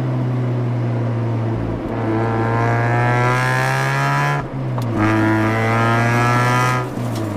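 Mazda RX-8's twin-rotor Renesis rotary engine, heard from its exhaust at the rear bumper, pulling under throttle with a rising pitch. There is a brief break for a gear change about four and a half seconds in, then it pulls again before lifting off near the end.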